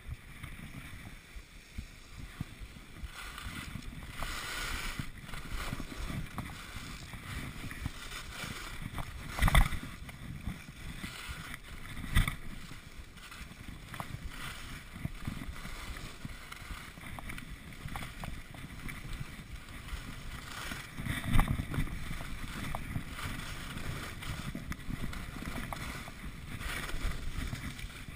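Skis sliding and scraping over packed snow on a downhill run, with wind rushing over the camera's microphone. Three louder knocks stand out, about ten, twelve and twenty-one seconds in.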